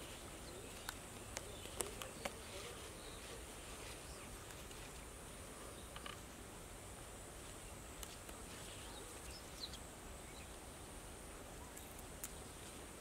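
Quiet outdoor field ambience with a faint steady high-pitched whine, broken by scattered soft clicks and snaps of leafy greens being picked by hand.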